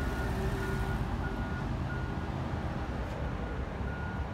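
2011 Audi A6 sedan rolling slowly with its engine running low, over a repeated high electronic warning beep, about one and a half beeps a second.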